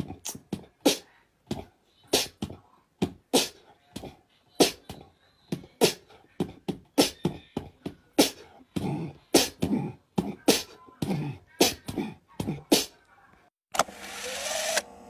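A run of sharp clicks, about two to three a second in an uneven rhythm, with a few short pitched sounds among them. About fourteen seconds in, they give way to a steady buzzing hiss.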